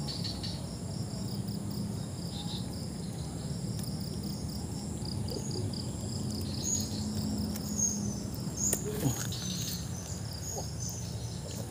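Insects chirping steadily, a repeated high trill, with a couple of light knocks about nine seconds in.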